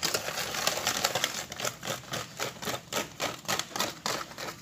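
A hand whisk beating thin chocolate batter in a metal bowl, making rapid clicking strokes against the bowl at about five a second. The strokes run close together at first and are more distinct over the second half.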